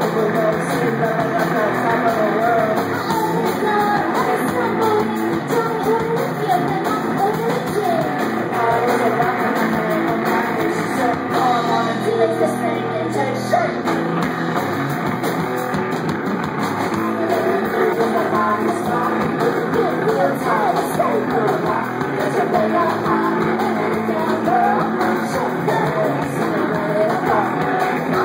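Live rock band playing loud: electric guitar with a singer.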